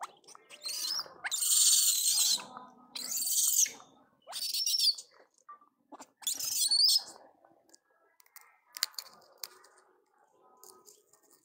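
A series of five loud, high-pitched wavering animal calls, each under a second long, in the first seven seconds, followed by faint clicks and rustling.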